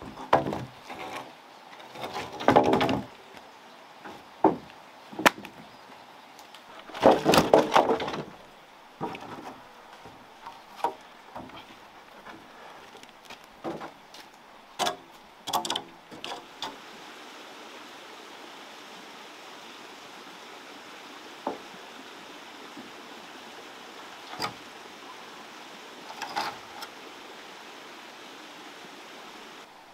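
Heavy sawn wooden beams being shifted on a timber pile, knocking and clattering against each other in a run of hollow wooden knocks, with the longest clatter about seven seconds in. After about seventeen seconds only a few single knocks remain over a faint steady background.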